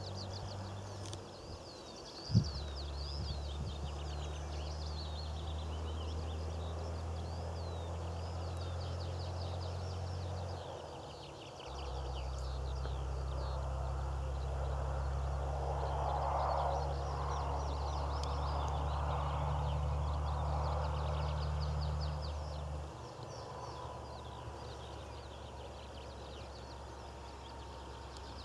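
Small birds singing and chirping throughout, over a steady low rumble that starts a couple of seconds in, breaks off briefly about halfway, and stops a few seconds before the end.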